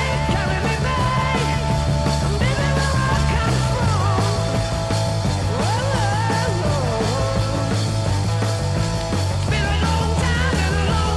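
Rock music: a bass line holding notes that change every second or two under a lead melody that bends in pitch.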